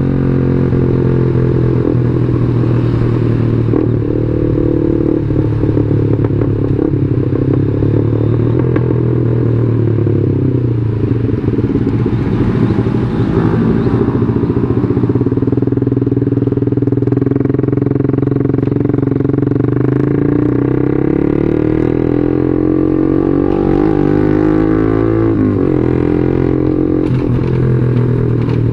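Yamaha Jupiter MX 135's single-cylinder four-stroke engine running under way, its pitch rising and falling several times with the throttle and gear changes, over a low rumble of wind and road.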